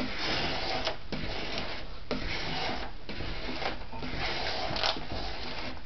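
Squeegee scraping across application tape over a vinyl decal in short repeated passes, about six strokes, each a rough scraping hiss of roughly a second.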